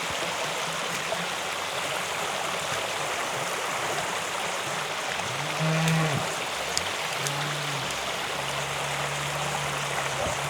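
Creek water running steadily, with cattle mooing in the second half: a short low moo about six seconds in, then a long held moo.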